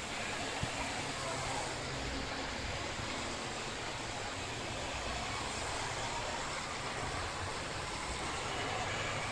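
Model trains running on the layout's track: a steady rumble under the hiss of room noise.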